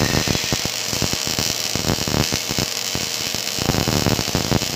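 MIG welding arc from an OTC MIG welder, a steady rapid crackle and buzz as the wire feeds into the weld.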